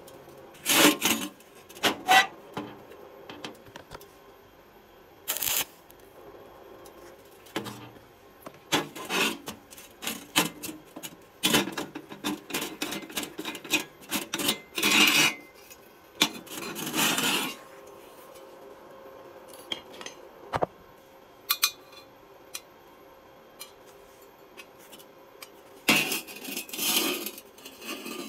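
Irregular scrapes, clinks and knocks of metal being handled on a steel worktable: galvanized square tubing and a bolted steel clamping jig, with a jig bolt turned by a gloved hand.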